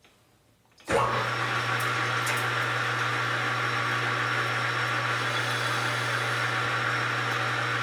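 An electric motor switches on about a second in and runs steadily, with a constant low hum under a broad whirring noise.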